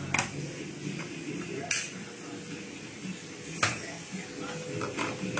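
Four sharp clicks or knocks of hard objects, spaced about a second and a half apart, over low room noise.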